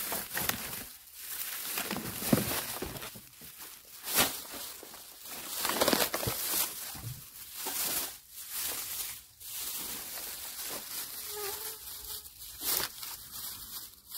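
Black plastic trash bag rustling and crinkling in irregular bursts as it is handled and opened.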